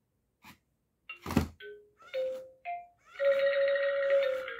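A robot toy dog making electronic sound effects: a click and a sharp thump, then a few short synthesized beeps at different pitches and a held electronic tone lasting about a second.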